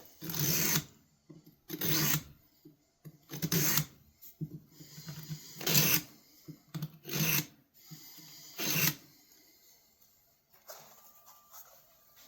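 Six rasping strokes of a pocket-knife's steel blade worked by hand across an abrasive, about one every one and a half seconds, with lighter scraping between them; the strokes stop about three-quarters of the way through.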